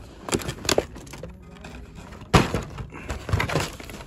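Hot Wheels blister-pack cards, cardboard backs with plastic bubbles, being flipped and knocked against each other in a display box: a run of sharp clacks and plastic crinkles, the loudest a little over two seconds in.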